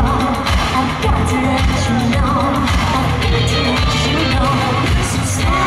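Live pop music in a large arena: a woman singing into a microphone over a band with a steady, regular bass beat.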